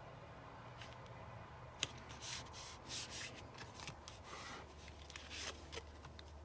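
Faint rustling and rubbing of cardstock being slid, pressed and picked up on a craft mat, with one sharp tap about two seconds in.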